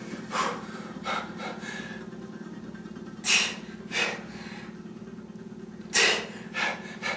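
A man breathing hard under exertion while curling dumbbells on his last set: short, forceful breaths that come mostly in pairs about every three seconds, over a steady low hum.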